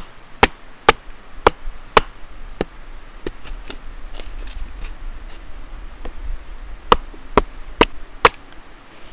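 Wooden baton striking a wooden wedge set in the crack of an upright log, to split it. There are about six sharp knocks roughly two a second, then a lull with lighter taps, then four more knocks near the end.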